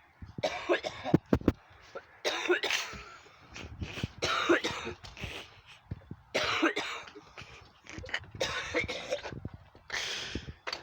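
A person coughing in repeated fits, about six bouts each under a second long, with short pauses between them.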